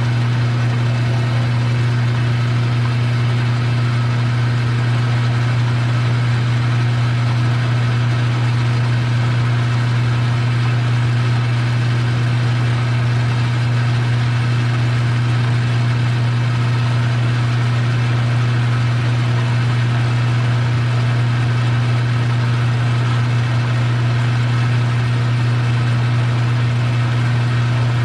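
Metal lathe running steadily under power, its electric motor giving a strong, unchanging low hum over a wash of gear and spindle noise.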